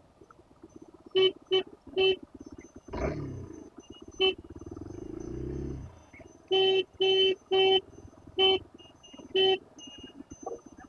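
A vehicle horn gives about nine short, flat-pitched honks: three close together a second in, one at about four seconds, and a run of five in the second half. Under them a motorcycle engine runs, swelling and dropping away twice.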